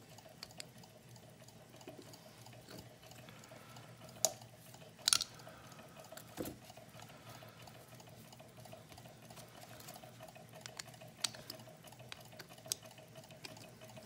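Small metal clicks and scrapes as a screwdriver and fingers work on a picked brass Welch rim lock cylinder to take it apart, with a few sharper clicks about four, five and six seconds in. A faint steady hum of a small Stirling engine running on a hot coffee cup sits underneath.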